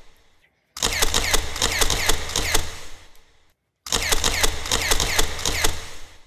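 Fingertips rubbing a gritty face scrub over the skin in a circular massage, close to the microphone: a dense, rapid scratchy crackling. It cuts off abruptly twice, about half a second in and again after about three and a half seconds.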